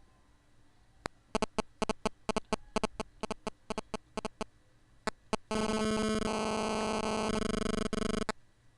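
A rapid, irregular run of sharp electronic clicks, then about three seconds of a loud, steady synthesized buzzing tone that changes pitch twice and cuts off suddenly.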